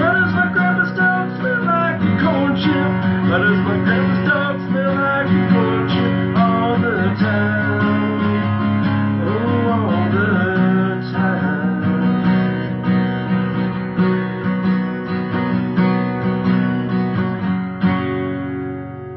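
Steel-string cutaway acoustic guitar strummed in chords, with a man's voice singing over it. Near the end the strumming stops and the last chord rings and fades.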